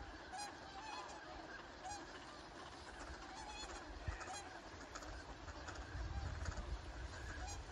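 Swans and a large flock of ducks calling on the water: scattered short honking calls over a steady chatter of many birds. A low rumble swells for a while past the middle.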